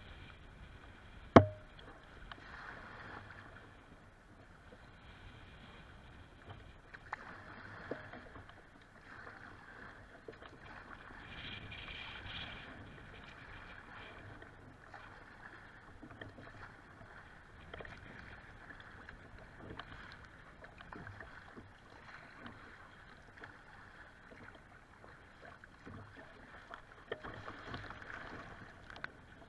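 Choppy lake water sloshing and slapping against a kayak's hull as it moves through the waves, swelling and easing every few seconds. A single sharp knock stands out about a second and a half in.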